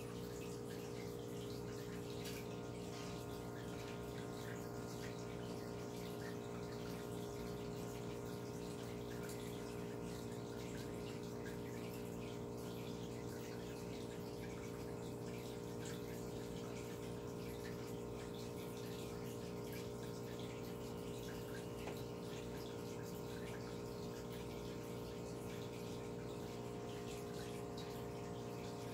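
Reef aquarium equipment running: the steady hum of the water pumps with water running and trickling through the tank's plumbing.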